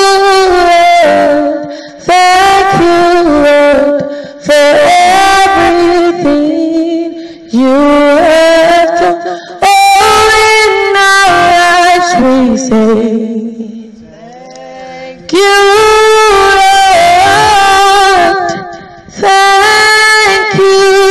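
A woman singing a gospel thanksgiving worship song solo, in sung phrases of a few seconds each with short breaks between them.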